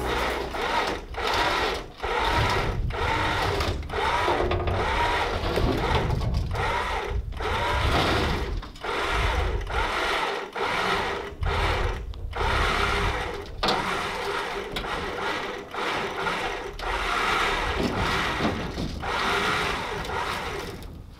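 Winch running under load, pulling a cut steel flatbed section up onto a trailer. Its motor note dips and breaks off about once a second, and it stops near the end.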